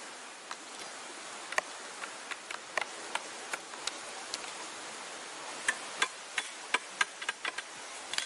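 A wooden mallet knocking on wood again and again: short, sharp knocks at uneven intervals, coming quicker and louder about six to seven and a half seconds in. A steady hiss runs underneath.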